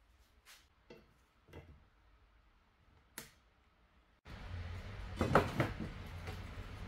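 A few faint clicks over near silence, then a steady low hum starts suddenly, with one sharp knock followed by a few smaller taps, from a square steel bar being handled against a wooden workbench.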